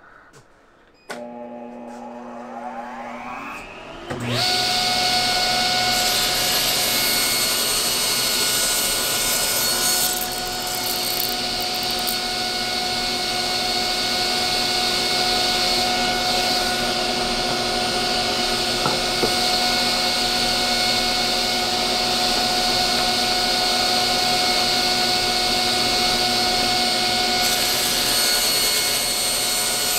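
Powermatic table saw and shop dust collector running: a motor spins up with a rising whine over the first few seconds, then about four seconds in the machines settle into a loud, steady whine that holds without a break.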